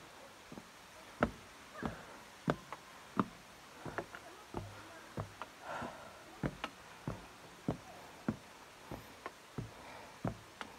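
Footsteps knocking on the plank treads of a trail staircase, about one and a half steps a second at an even walking pace.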